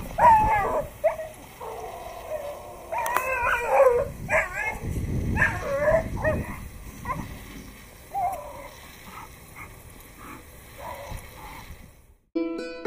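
A leashed pit bull barking and yelping in rapid bursts as it lunges, a dog-aggressive reaction. The calls grow fainter after about seven seconds, and near the end the sound cuts off and soft instrumental music begins.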